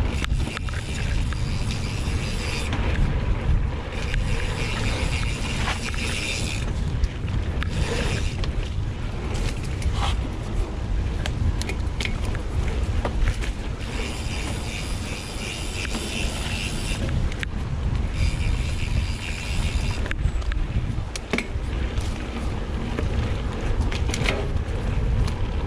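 Mountain bike riding down a dirt singletrack: wind rushing over the microphone, tyres on dirt, and the bike rattling and clicking over bumps. A high buzz comes in twice for a few seconds, typical of the rear hub's freewheel while coasting.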